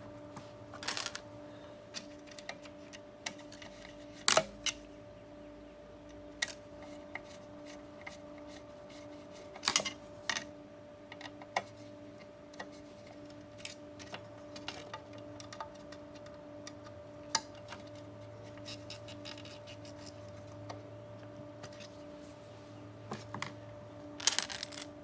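Scattered sharp clicks and knocks of a screwdriver and small parts against a sheet-metal drive enclosure and its front panel during reassembly. The loudest knocks come about 4 and 10 seconds in and near the end, over a steady faint hum.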